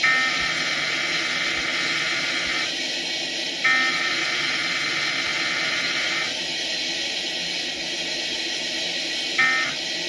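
Emergency Alert System SAME data tones from a TV speaker, a harsh warbling screech. Two long bursts of about two and a half seconds each are the digital header of a Required Weekly Test. A short burst near the end begins the end-of-message code. The TV programme's music and sound play quietly underneath.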